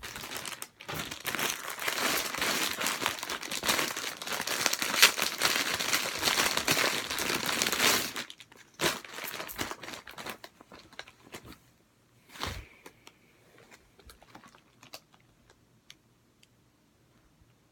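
Packaging crinkling and rustling as shirts are unpacked and handled, dense and continuous for about eight seconds, then only occasional rustles with one sharp knock partway through.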